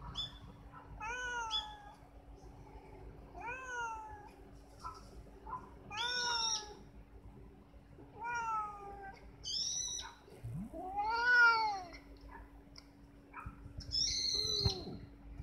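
Cat meowing repeatedly: about seven drawn-out calls that rise and fall in pitch, the longest and loudest about eleven seconds in.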